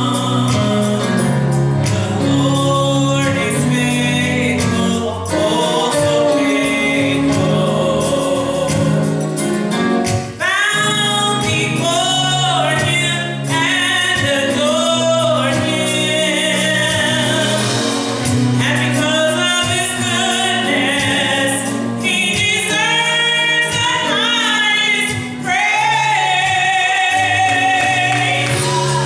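Gospel choir singing with electronic keyboard accompaniment; steady held chords at first, then the voices come in stronger about ten seconds in.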